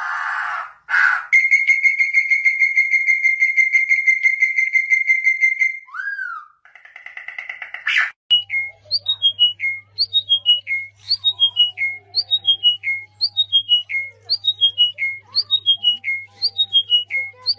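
Songbird calls: a rapid, even trill held for about five seconds, then, from about eight seconds in, a short falling whistled phrase repeated about twice a second over a faint low hum.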